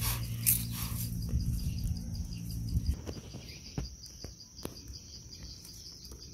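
Insects trilling steadily in a high, finely pulsing chorus, with a few sharp clicks in the second half as the fruit is handled.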